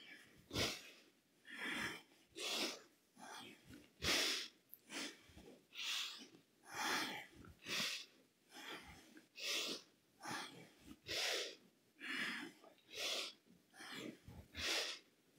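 A woman's hard breathing during skater bounds: short, sharp exhalations about once a second, picked up close by a head-worn microphone.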